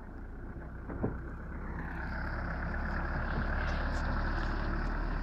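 Turbodiesel SUV engine running at low speed as it drives across a grass field towing a trailer, getting louder as it comes close past. A single sharp knock sounds about a second in.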